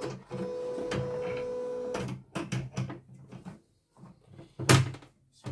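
The CNY E900 embroidery machine's embroidery-arm motor gives a steady whine for about two seconds as the carriage moves through calibration. Light clicks follow, then a loud clack near the end as the embroidery hoop is fitted onto the carriage.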